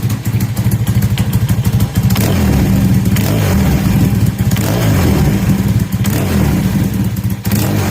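Kawasaki KZ750 parallel-twin engine running through a Delkevic aftermarket exhaust. It ticks over for about two seconds, then is revved several times, the pitch rising and falling with each blip. The engine is quite mechanical-sounding and the exhaust note crisp.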